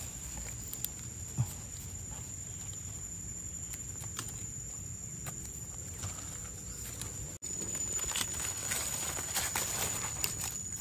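Rustling and light crackling of someone moving through forest leaf litter, denser and louder after a sudden break about seven seconds in, over a steady high-pitched whine.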